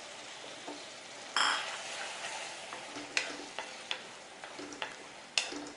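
Raw chicken pieces sizzling as they go into a hot pan of fried onion and tomato masala, with a sudden louder sizzle about a second and a half in. A spoon stirs and knocks sharply against the pan a few times.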